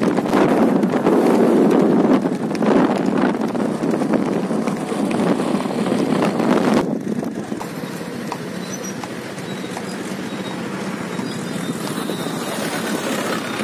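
Motor vehicle running, with wind on the microphone: loud and rough for about seven seconds, then suddenly quieter and steadier.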